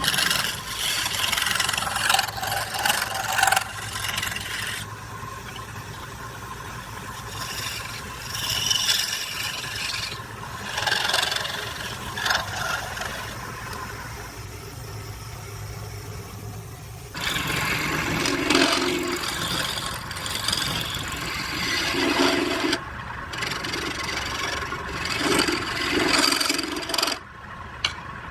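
Wood being scraped and cut on a running wood lathe, over the steady hum of the lathe's motor. The scraping comes in passes that come and go, with quieter stretches between them.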